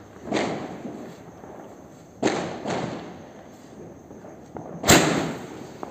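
Coronation Panchavatar sky shot firing: sharp bangs, about four of them, each trailing off with an echo, the loudest near the end.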